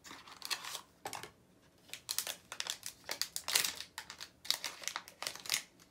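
Blind-box pin packaging crinkling and rustling in the hands as it is opened, in irregular bursts.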